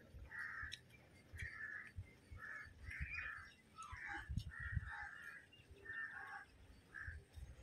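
Crows cawing over and over, a short call every half second to a second, with soft low thumps underneath.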